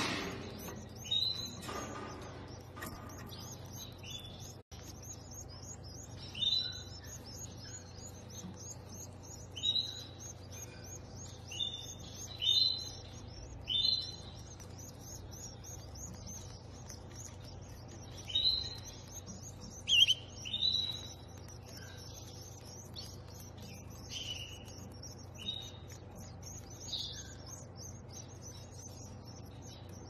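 Canaries chirping: short, high cheeps in scattered, irregular bursts, the loudest about twenty seconds in, over a faint steady low hum.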